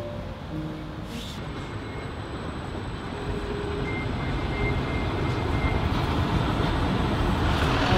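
Steady rumble of city traffic noise, growing gradually louder.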